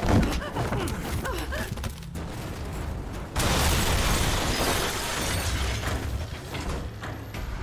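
Action-film sound effects: a sudden crash followed by heavy mechanical clanking and clattering debris as a large walking combat robot bursts in. About three and a half seconds in, a loud explosion rumbles on and slowly dies away.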